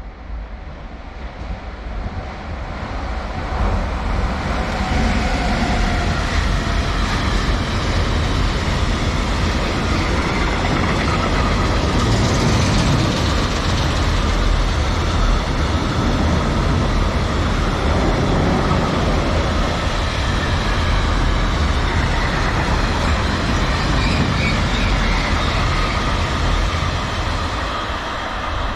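A train passing close by on the rails. The rolling noise builds over the first few seconds, holds steady and loud for more than twenty seconds, and eases a little near the end.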